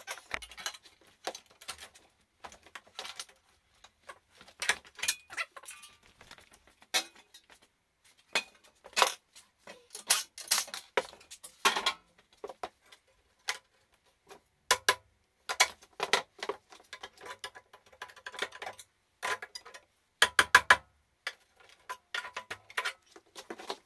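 Irregular light clicks, taps and clinks, with a few louder knocks, from pulling the cover off a battery module and handling its metal casing and parts.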